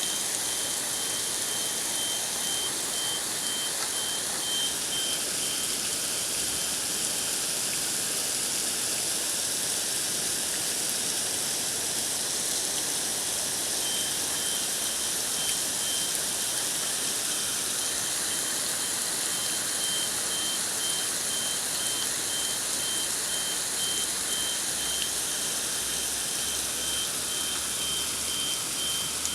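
Steady rain falling, a dense, even hiss. A high-pitched beeping repeats at a steady quick pace through the first few seconds and again from about halfway on.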